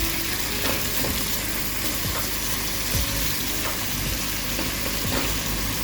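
Chicken pieces sizzling as they sear in hot oil in a pan, a steady frying hiss, with a few light knocks of a utensil stirring them.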